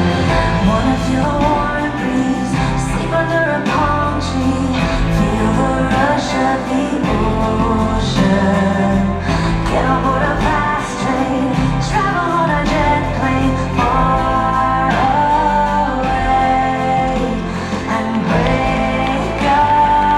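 Music with a singing voice over a full instrumental accompaniment, with sustained bass notes underneath.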